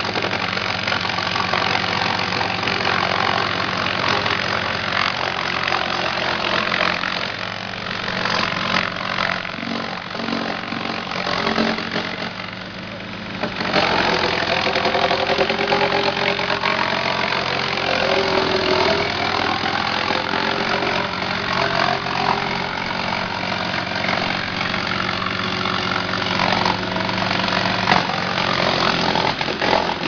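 40 hp drum wood chipper with its diesel engine running while a log is fed in and cut into chips: dense wood-cutting noise over the steady engine. A little before halfway the noise eases briefly, then comes back suddenly with a rising whine.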